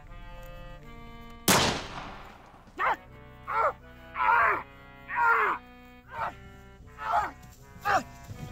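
A single pistol shot about a second and a half in, with a long decaying tail. It is followed by a string of short cries that each fall sharply in pitch, about one every half second to a second. Background music plays throughout.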